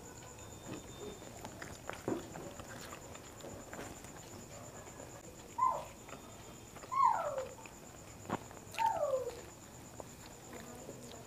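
Three short animal calls, each sliding down in pitch, coming about a second and a half apart. Faint clicks of eating by hand and a faint steady high-pitched whine sit under them.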